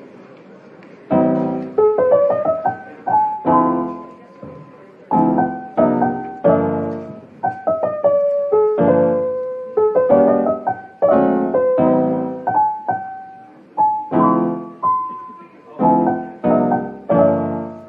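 Background piano music: a gentle tune of struck chords and single notes, each ringing and fading, in a steady rhythm that comes in about a second in.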